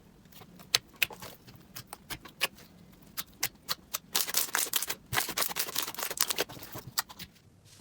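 Slime being squeezed and pressed, giving sharp crackling pops and clicks: scattered at first, then coming thick and fast for a couple of seconds in the middle before tailing off.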